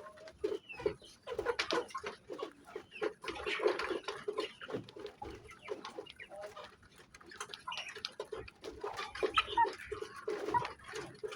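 Young kampung hens (Indonesian native chickens) clucking and calling on and off, with many short sharp taps and scuffles mixed in.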